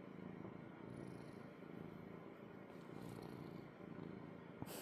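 Domestic cat purring steadily, a faint low hum that swells and eases with its breathing.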